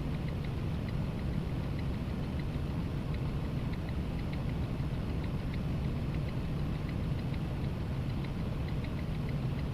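Steady low drone of a semi truck's diesel engine and road noise heard from inside the cab while driving, with faint light ticks or rattles now and then.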